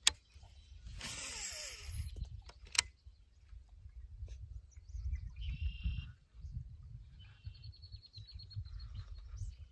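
A fishing cast: a sharp click, then a whoosh with a reel whir falling in pitch for about a second, and another click. Birds call afterwards, one with a quick, even trill near the end.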